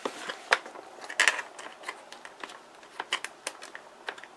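Hands handling a plastic HDX small-parts organizer case: a series of sharp plastic clicks and taps, loudest about half a second in and in a quick cluster just after a second, with lighter clicks later on.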